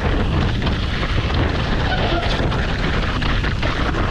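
Wind rushing over the camera microphone and tyres rolling over loose, rocky dirt as a mountain bike descends a trail, with frequent small knocks and rattles from the bike.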